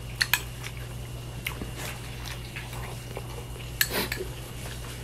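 Metal spoon clinking and scraping against a clear bowl while eating, a few short sharp clicks with the loudest cluster about four seconds in, over a steady low hum.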